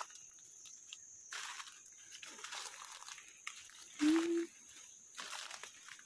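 Footsteps crunching and rustling through dry forest leaf litter over a steady high-pitched insect drone. About four seconds in, a brief low hum-like call, slightly rising, is the loudest sound.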